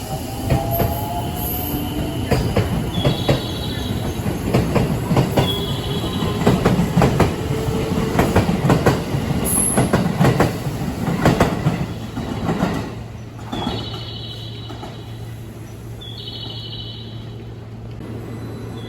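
JR West electric train passing along the platform, its wheels clattering over the rail joints. The clatter dies away about two-thirds of the way through, leaving a steady low hum.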